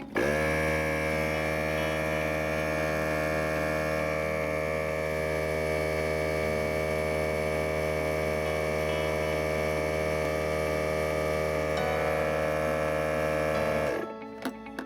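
Small oilless air compressor motor running. It starts abruptly with a brief dip in pitch, holds a steady buzzing hum, and shuts off suddenly near the end.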